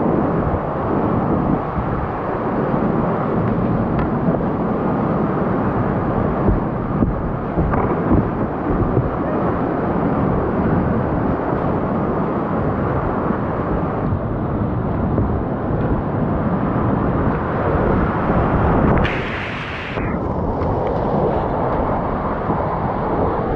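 Class 3–4 whitewater rapids rushing loudly and steadily close to a kayak-mounted camera. A brief, sharper hiss comes about three-quarters of the way through.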